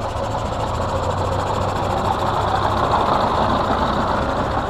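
Scania 142M's 14.2-litre turbocharged, intercooled V8 diesel idling steadily with a low, even hum.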